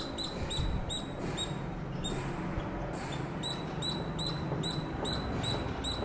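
Squirrel calling with a fast run of short, sharp, high-pitched chirps, about three a second, with a brief pause about two seconds in.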